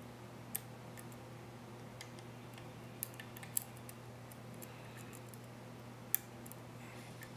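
Lock picking on a Master Pro Series 6270 padlock: a pick working the six-pin core, which has security pins, under a tension wrench, giving a few scattered sharp metallic clicks, the loudest about six seconds in. A steady low hum runs underneath.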